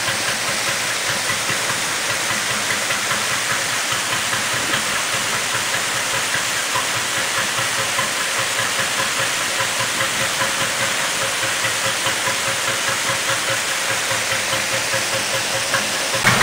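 Canal lock filling: water pours through the open paddles of the upper lock gate in a loud, steady rush. Right at the end, the narrowboat's engine comes in, running with a low beat.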